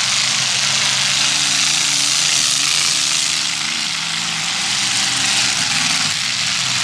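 Demolition derby car engines running together: a steady low drone under a loud, even wash of noise, with a wavering pitch that shifts as the engines change speed.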